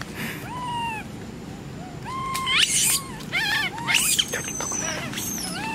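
Long-tailed macaques calling: a run of short, high, arching coos and squeals, several overlapping, thickest in the middle.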